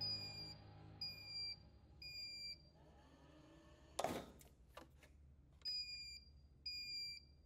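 Electronic alarm beeping in sets of three short, high beeps about a second apart. After the first three there is a pause broken by a single thump, then another three beeps, the three-beep pattern of a smoke alarm.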